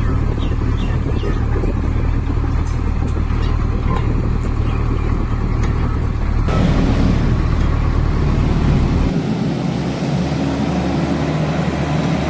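A heavy machine's diesel engine running with a steady low rumble; the sound changes abruptly about six and a half seconds in.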